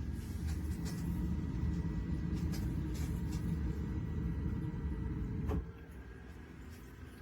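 A steady low rumble that stops suddenly with a click about five and a half seconds in.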